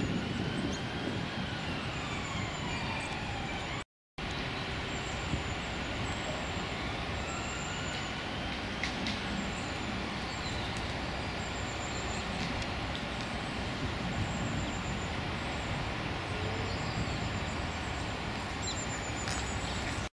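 Steady rumble of distant urban traffic, with a passing engine's whine gliding up and then down in pitch twice. Faint, high-pitched short peeps recur over it, and the sound cuts out for an instant about four seconds in.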